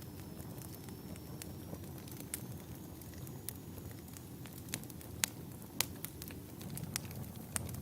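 Wood fire burning in a fireplace: a steady low rumble of flames with scattered sharp crackles and pops from the logs, the loudest pops a little past the middle.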